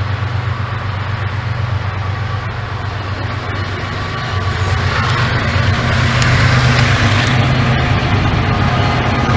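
Passing train's diesel locomotive running with a steady low rumble and rail noise between horn blasts, growing louder about halfway through as it comes closer.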